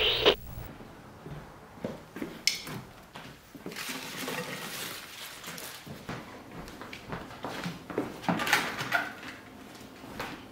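Quiet household handling sounds of someone moving about a room: scattered light knocks and clicks with a few longer rustles.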